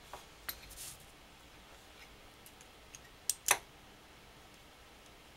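Small metal clicks and taps from a Stevens Model 64 rifle's steel trigger group being worked by hand as its E-clips and pins come out: a few faint clicks in the first second, then two sharper clicks close together a little past three seconds in.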